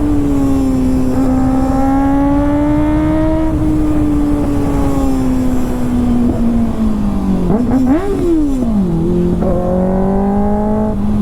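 Kawasaki ZX-6R inline-four with an SC-Project exhaust running at a steady, slowly wandering engine speed. About eight seconds in the pitch dips, rises sharply and falls again, then the engine settles at a lower steady note, over a constant low rumble.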